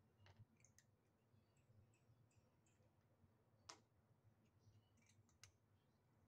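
Faint, irregular crunching and clicking of a kitten eating dry kibble from a plastic bowl, with a sharper click about three and a half seconds in and another at about five and a half.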